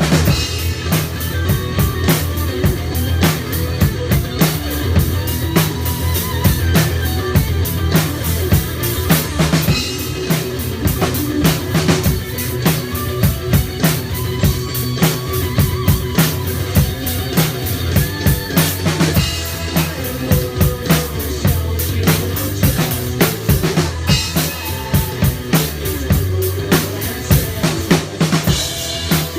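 Rock drum kit played in a steady, driving beat, with bass drum, snare hits and cymbals, over other pitched instruments.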